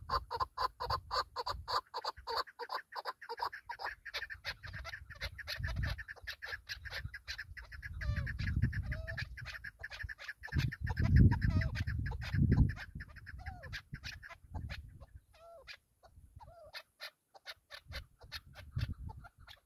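Chukar partridges calling: a fast run of short clucking notes, several a second, that thins out to scattered calls in the last few seconds. Gusts of wind rumble on the microphone, loudest in the middle.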